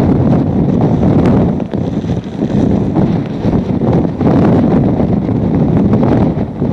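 Hurricane-force wind buffeting the camera microphone: a loud, continuous rumbling rush that swells and dips with the gusts.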